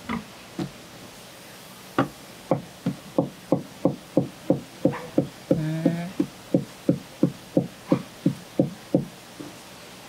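Kitchen knife chopping on a cutting board in a steady rhythm, about three strokes a second for some seven seconds, after a couple of single knocks.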